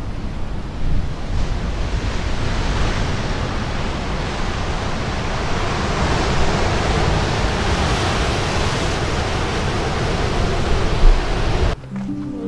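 Wind rushing over the microphone with a heavy, fluctuating rumble, mixed with the steady wash of ocean surf breaking on rocks. Near the end it cuts off abruptly and music begins.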